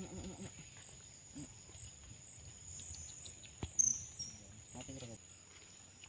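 Insects chirping: a steady high-pitched trill that pulses about twice a second. Faint low voices come and go, and a sharp click and a short high chirp come a little past the middle.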